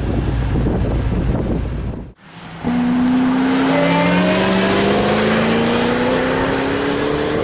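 Ford Shelby GT500's supercharged V8 rumbling at low revs, then, after a cut about two seconds in, accelerating hard with a steadily rising engine note as the car drifts and pulls away on the wet track.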